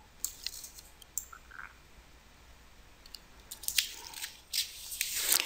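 Faint scattered clicks and small wet mouth noises close to a microphone, such as lip smacks, coming more often after about three and a half seconds.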